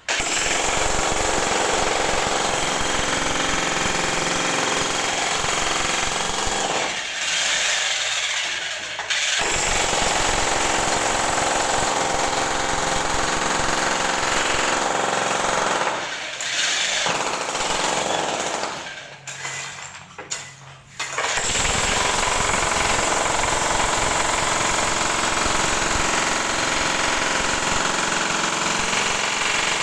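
Jackhammer hammering continuously, breaking up a ceramic tile floor and its hard mortar bed. It stops briefly about seven seconds in and again about twenty seconds in, then runs on.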